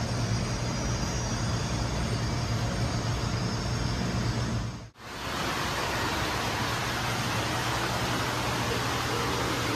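Steady indoor background noise: a constant hiss over a low hum, with no distinct event. About halfway through it drops out abruptly for a moment and comes back with more hiss.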